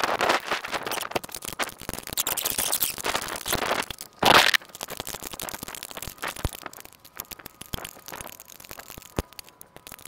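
A wrench working on the backhoe's mounting bolts: irregular metallic clicking and rattling, with one louder burst about four seconds in, thinning out toward the end.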